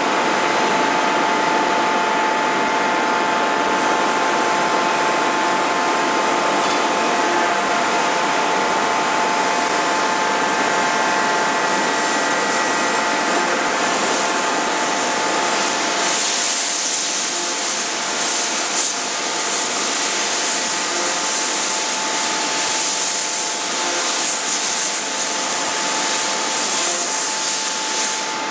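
Steady industrial machinery noise: a continuous drone with a fixed whine, with hiss that grows stronger about halfway through. There are no hammer or press blows.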